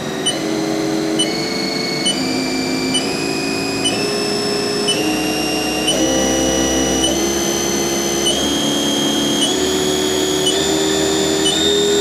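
Haas Mini Mill CNC spindle running unloaded, its whine stepping up in pitch about once a second as the speed is raised from about 2,000 toward 5,000 RPM. Short regular ticks come about once a second.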